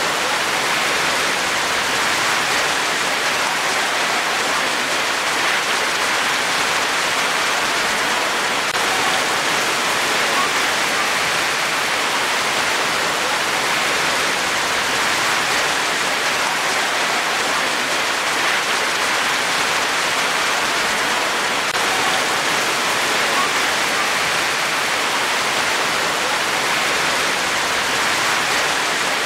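Rain falling steadily and evenly, no single drop or break standing out.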